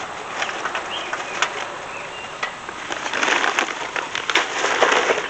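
Kingsford Original charcoal briquets clattering and rattling as they are poured out of a metal charcoal chimney, with a heavier rush of clatter about three seconds in.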